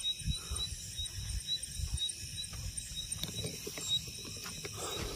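Footsteps through grass and the rustle and knocks of a handheld phone while walking, over insects chirping in a steady high pulse about three times a second.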